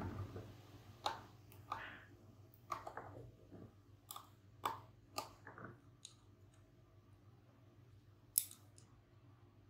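Small plastic clicks and taps from a plastic model kit part being handled with a fine hobby tool: a soft rustle at the start, a string of light clicks over the next five seconds, and one sharper click near the end.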